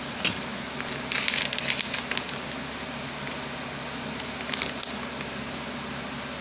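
Paper packaging crinkling and rustling as a toy's folded collector's sheet is handled and unfolded, in irregular clusters of crackles, the densest about a second in and another near five seconds, over a faint steady hum.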